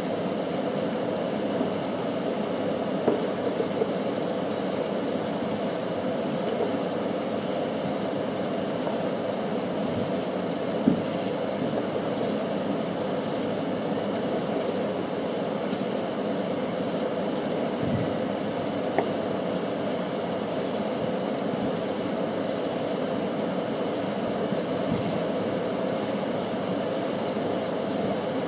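Aerial firework shells bursting at a distance, a few short sharp pops every several seconds, the loudest about eleven seconds in, over a steady background hiss and rumble.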